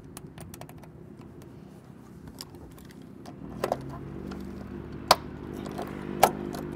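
Hand rivet puller setting Cherry Max blind rivets in an aluminium door-sill bracket: light metallic clicks and clinks, with three sharp snaps about a second apart in the second half. A steady low hum comes in about halfway through.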